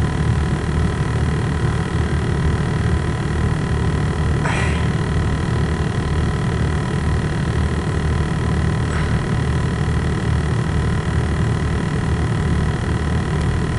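Long CN double-stack container freight train rolling past, a steady low rumble of wheels and cars, with a short higher-pitched sound about four seconds in.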